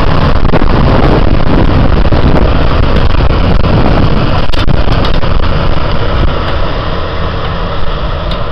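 Tractor pulling a Sem'Agro 300 tine seed drill through dry soil: loud, steady engine and machinery noise, with a few sharp clicks about four and a half seconds in and a slight easing off near the end.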